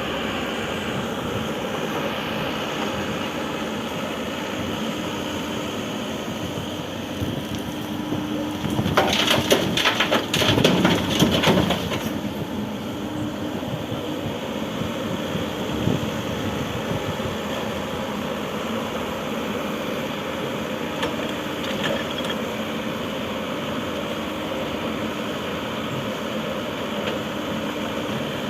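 Excavator's diesel engine running steadily, with a loud burst of crunching and cracking lasting about three seconds, starting about nine seconds in.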